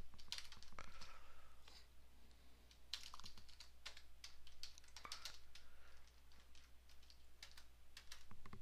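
Computer keyboard typing: a few short runs of faint keystrokes with pauses between them.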